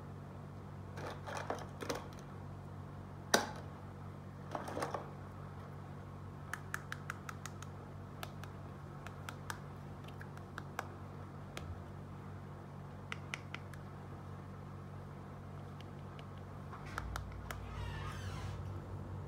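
Small plastic toy pieces being handled: scattered light clicks and taps, one sharper click about three seconds in, and short rustles, over a steady low hum.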